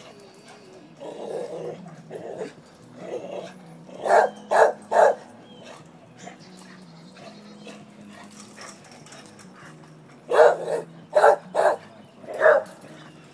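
Dog barking in bursts: a few softer, lower barks at first, three quick sharp barks about four seconds in, then four more loud barks near the end.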